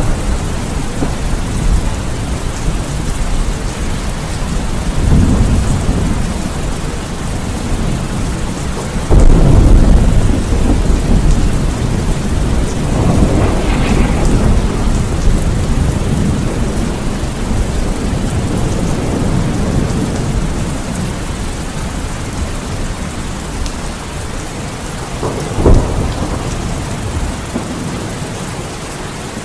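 Steady rain with rolling thunder. The thunder swells several times and is loudest about nine seconds in, with another short rumble near the end.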